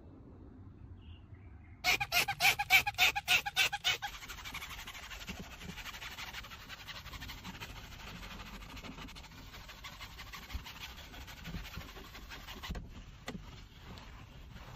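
Soft detailing brush scrubbing cleaning foam on a car's plastic sun visor: a quick run of loud squeaks about two seconds in, about five a second, then a steady soft scrubbing of bristles that fades near the end.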